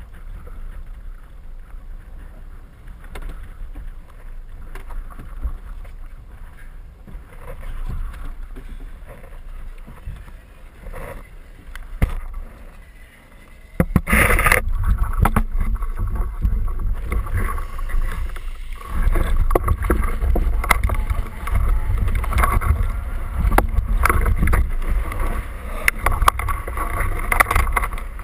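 Knocks and water noise against a small boat's fibreglass hull, then about halfway a sudden loud burst, after which a heavy steady rumble of wind and water buffeting the camera takes over, with scattered clunks.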